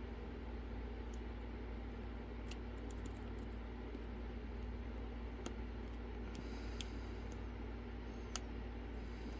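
Lock picks working the pins of a Lockwood Twin padlock: a few faint, scattered metallic clicks over a steady low hum.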